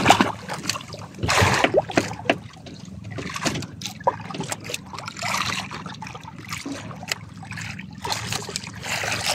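Sea water splashing and sloshing against the side of a small wooden outrigger boat, with scattered knocks and clicks as a freshly caught fish is lifted in and handled on board.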